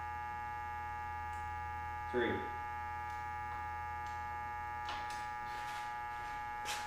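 Steady electrical mains hum made of several steady tones. A short vocal grunt comes about two seconds in, and a few faint clicks follow near the end.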